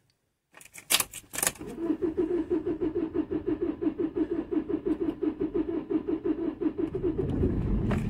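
Vauxhall Combo common-rail diesel engine cranking on the starter motor with a steady rhythmic beat after a few clicks, then catching and starting near the end. It starts only with the EGR pipe plugged off, pointing to a faulty EGR valve letting in too much exhaust.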